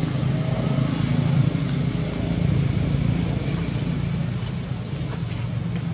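A motor engine running steadily, a continuous low hum with a hiss over it.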